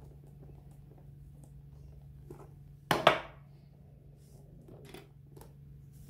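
A small screwdriver set down on a table with a sharp double clatter about three seconds in, amid faint clicks and rustles of gloved hands handling the pouch and its metal D-ring clip over a steady low hum.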